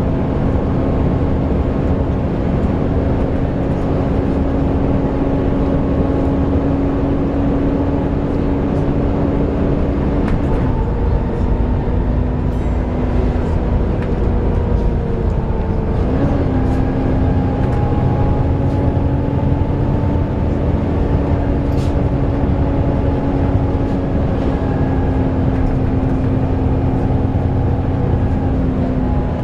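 Volvo B7TL double-decker bus's engine cooling fan giving its loud hoover-like whine, a steady droning tone over the engine and road noise. The whine's pitch sags about ten seconds in and climbs back about six seconds later.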